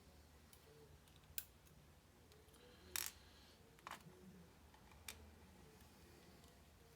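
A few short, sharp metallic clicks in near silence, the loudest about three seconds in: small lock pins, springs and tools clicking as a Sargent lock cylinder is taken apart.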